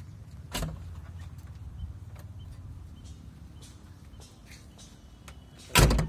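JCB backhoe loader's cab door: the latch clicks open about half a second in, and the door slams shut near the end, over a steady low rumble.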